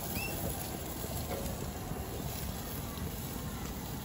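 Fish fillets sizzling softly on a hot griddle plate over a portable propane camp stove, with wind rumbling on the microphone. A bird gives a short chirp just after the start.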